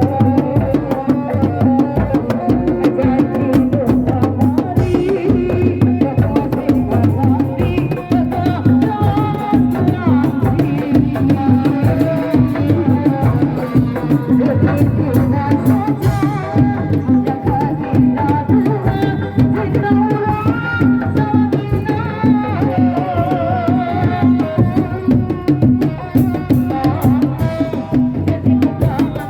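Kuda lumping ensemble music: kendang hand drums keep a fast, dense rhythm under a wavering melodic line, loud and continuous.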